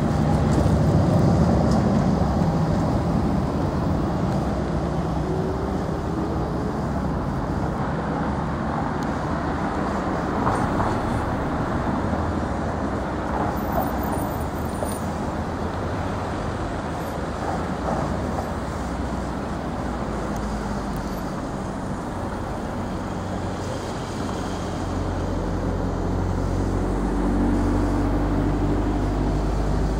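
Street traffic: cars running past, with a car engine close by and louder in the last few seconds.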